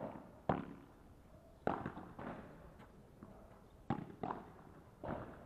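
Padel rally: a ball struck back and forth by padel rackets and bouncing on the court, heard as about seven sharp knocks at uneven intervals.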